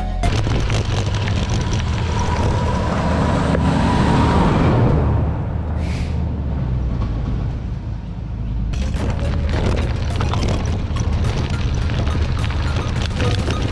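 Wind buffeting the microphone and tyres rumbling over gravel on a moving gravel bike, a heavy low rush with crunching clicks of stones picking up again about two-thirds of the way through.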